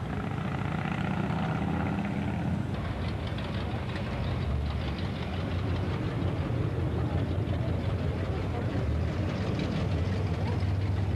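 Car engine idling with a low, steady rumble, with voices of people nearby mixed in.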